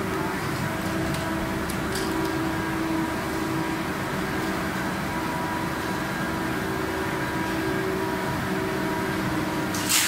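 Plastic sheet extrusion line running, a steady machine hum with several constant tones, a few faint clicks early and a short sharp hiss near the end.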